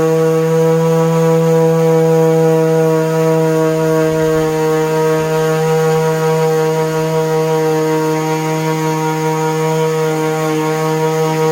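DeWalt palm orbital sander running steadily, its 3M Cubitron II disc sanding cedar wood. A constant, even motor hum with a strong low note and a bright overtone whine above it.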